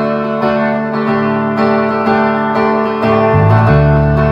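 Live band playing a song's intro: electric guitar chords struck in a steady rhythm, with bass guitar coming in strongly about three seconds in.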